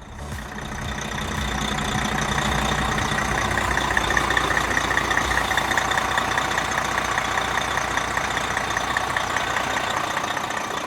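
Detroit Diesel Series 60 inline-six diesel engine of a Prevost H3-45 coach idling steadily, fading in over the first couple of seconds.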